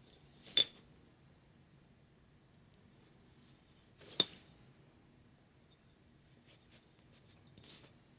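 Three short metal clinks from a brake caliper and its small parts being handled on a workbench: the loudest about half a second in, with a brief high ring, another about four seconds in, and a fainter one near the end.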